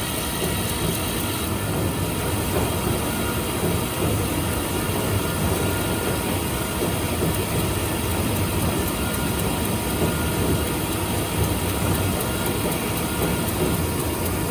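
Milling machine running steadily while fine-milling an A2 tool-steel plate: a constant mechanical hum with a few faint high tones held over it.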